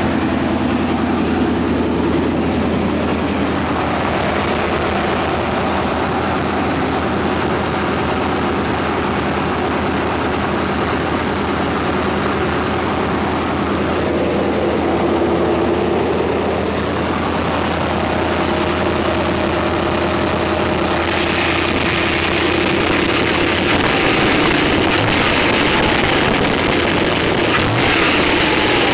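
Chevy small-block V8 truck engine idling steadily. In the last few seconds it gets a little louder and more hissy.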